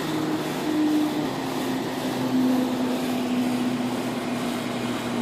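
Steady mechanical hum with a noisy hiss beneath it.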